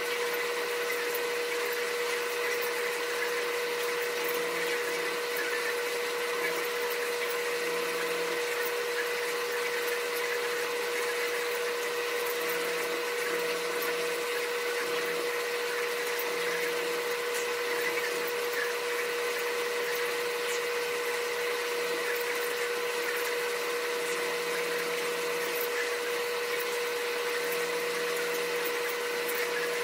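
A steady machine hum with one constant mid-pitched tone over a hiss, unchanging throughout.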